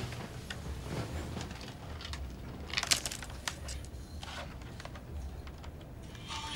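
Quiet handling sounds: light clicks of laptop keys and rustling of clothing and bedding, with a louder cluster of clicks and rustle about three seconds in as a pair of over-ear headphones is picked up.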